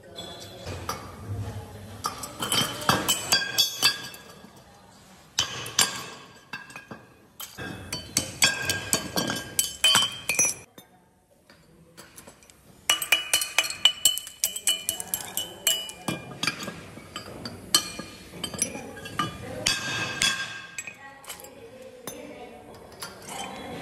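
Steel tool striking cast aluminium motorcycle wheel hubs to knock off the leftover casting metal, with the broken aluminium pieces and hubs clinking as they land on the pile. The strikes come in quick runs of a few seconds, with a short pause near the middle.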